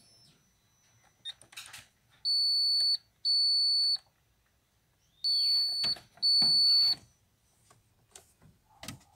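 Alfa Romeo 147 instrument cluster sounding its warning chime: four steady high beeps, each under a second, in two pairs a few seconds apart. They come up with the ignition on, alongside the dashboard's warning messages for a number-plate light fault and service due. Faint clicks sound between the beeps.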